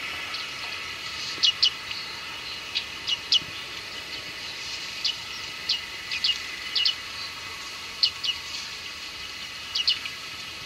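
Bearded reedlings calling: short, high 'ping' contact calls, many given in quick pairs, about a dozen spread irregularly, over a steady background hiss.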